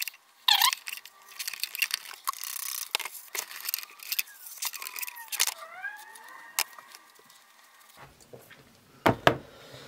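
Handling noise: rustling with many light clicks and knocks as plastic containers are moved about, with a few short squeaks in the middle and a couple of knocks near the end.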